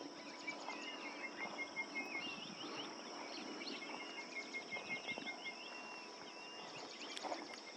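Faint wild ambience of insects droning steadily, with small birds chirping and twittering throughout. A quick run of even, high pips sounds twice, in the first two seconds and again in the middle.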